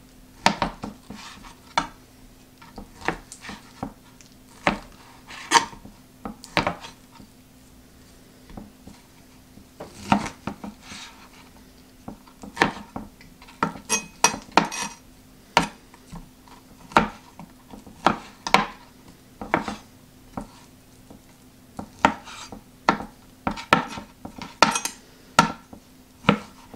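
A 7-inch high-carbon stainless steel meat cleaver cutting through chuck steak, its blade knocking on a plastic cutting board in short, irregular runs of strokes with pauses between them.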